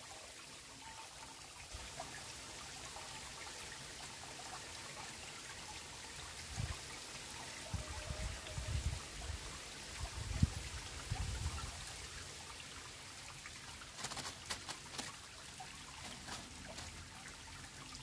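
Steady trickling and rushing of water from a reservoir outflow cascade into a river pool. A few dull low bumps come around the middle, and a cluster of sharp clicks near the end.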